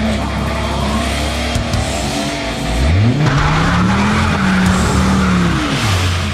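Car engine idling, then revving hard about three seconds in and held high while the tyres spin and squeal in a burnout, before the revs drop back near the end.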